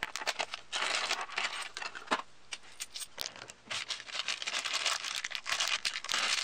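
A clear plastic packaging bag crinkling and rustling as it is handled and pulled open by hand, in two stretches with scattered small clicks.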